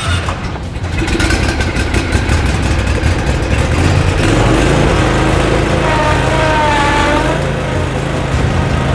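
Cub Cadet ZT1 50 zero-turn riding mower's engine running just after starting, its speed stepping up about a second in and again around four seconds in.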